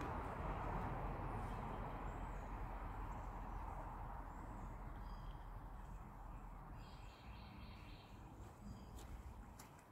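Outdoor background noise, a steady rushing hiss that fades gradually, with a few faint high bird chirps over it.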